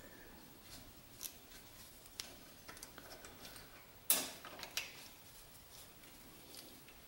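Faint clicks of metal parts being handled at the end bracket of a milling machine's table, with one sharp metallic clack about four seconds in and a smaller one just after.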